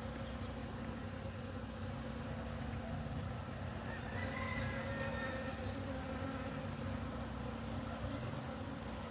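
Bees buzzing steadily, a continuous hum with fainter, shifting higher tones as individual bees fly close.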